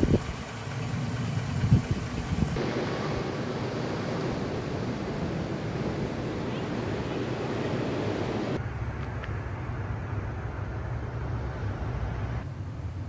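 Steady road and wind noise of a vehicle driving, with a low rumble underneath. The sound changes abruptly about two and a half seconds in, again past eight seconds and near the end, as separate driving clips are cut together.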